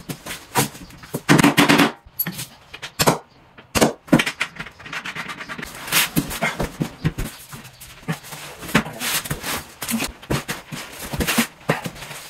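Irregular knocks, clunks and short scrapes of large laminated particleboard IKEA PAX wardrobe panels being handled, lifted and set down on the floor.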